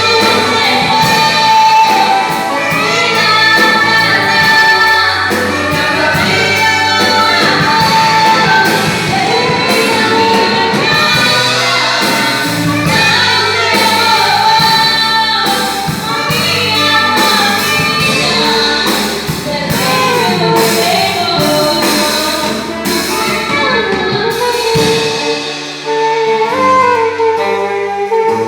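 A band playing a song with a lead vocal over bass and drums.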